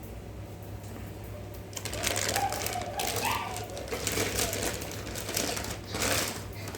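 Stainless steel mixer grinder jars and their lids being handled: a rapid run of clattering and clicks, with a brief metallic ring, starting about two seconds in and stopping just after six seconds.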